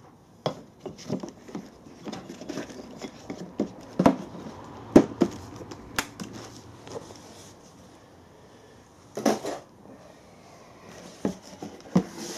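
Handling noise: light clicks, knocks and scrapes as small steel engineer's squares are set into their foam-lined wooden case and the case is closed, with the sharpest knock about five seconds in, then rustling and knocks as the cardboard parcel is opened out.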